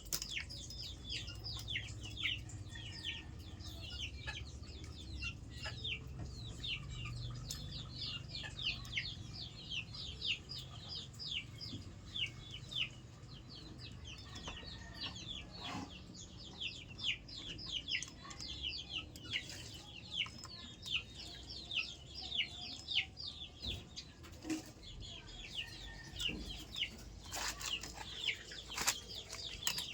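Chickens, with many short high chirps repeating several times a second, and a few sharp knocks near the end.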